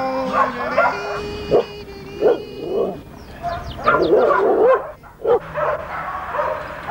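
A dog barking repeatedly in short, uneven barks.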